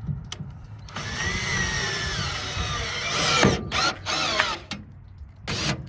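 Power drill running a travel trailer's stabilizer jack down onto its pad, its whine slowly dropping in pitch under load. This is followed by a few shorter bursts of the drill.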